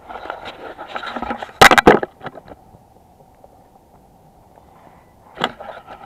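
Handling noise: rustling and scraping as things are moved about, with a quick cluster of loud sharp knocks about a second and a half in and a single knock near the end.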